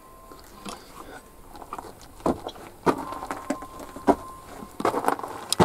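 Footsteps and scuffs on rock inside a cave: irregular knocks, several close together near the end, with a faint steady high whine under them in the middle.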